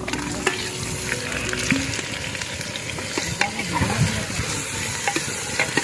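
Chicken masala of onions and tomatoes frying in ghee, sizzling steadily, with scattered clicks and scrapes of a spoon stirring it in the pot.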